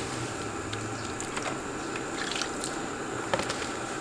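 Water heating in a covered metal pot on a wood fire, hissing steadily just before it comes to the boil; a few faint ticks sound over it.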